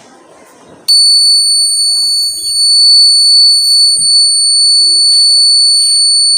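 Electronic buzzer of a rain-detector alarm sounding one continuous high-pitched tone, starting suddenly about a second in. It is the alert that the rain sensor has detected water.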